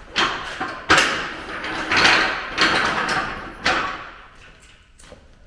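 A run of scrapes and sliding noises with sharp knocks, about five strokes in the first four seconds, dying away near the end.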